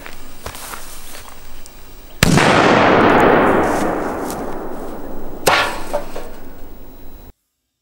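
A large firecracker goes off under an upturned metal pot with a sudden loud bang that throws the pot into the air. A long echo fades out slowly after it, and about three seconds later comes a second sharp crack.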